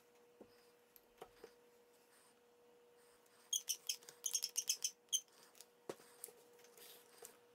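Craftsman one-handed bar clamps being tightened on a glued tool handle: a quick run of about ten sharp clicks from the squeezed trigger, a little past halfway, then a single knock, over a faint steady hum.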